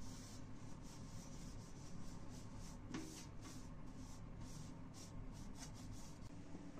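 Cloth wiping an ornate mirror and its frame: faint, quick swishing strokes, about two to three a second, that stop shortly before the end, with one small knock about three seconds in, over a steady low hum.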